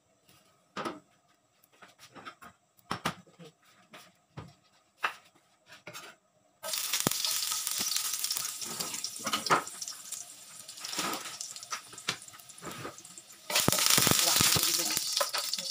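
A few scattered knocks and clicks of a wok being handled on a gas stove, then about a third of the way in a sudden loud sizzle as minced garlic goes into the hot wok. The sizzle runs on under a wooden spatula stirring and scraping the pan, and gets louder again near the end.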